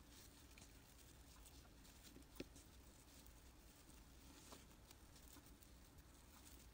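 Near silence, with faint rustling and a few soft ticks as hands handle acrylic scrubber yarn; the clearest tick comes about two and a half seconds in.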